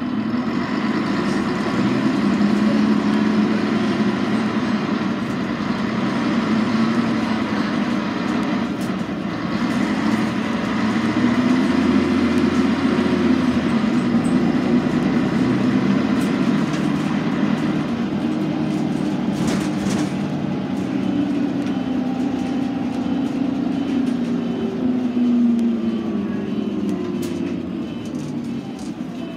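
Scania N113CRB city bus heard from inside the rear of the cabin while driving: its diesel engine runs steadily under way, its pitch rising and falling as the bus pulls and eases off, with a few light rattles.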